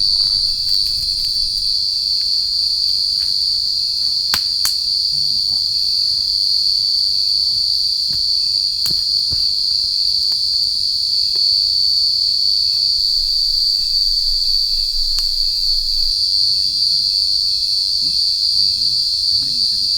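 Forest insects singing in one loud, steady, unbroken high-pitched drone, with a few faint clicks.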